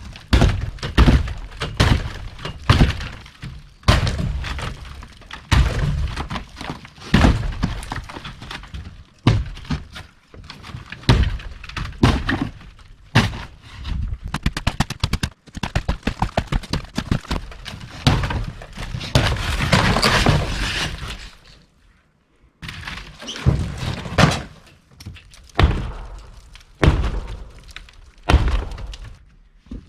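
Wall demolition inside an RV: repeated irregular knocks and cracking as wall panelling and framing are broken out. A quick run of blows comes about halfway through, followed a few seconds later by a longer noisy stretch of tearing and breaking.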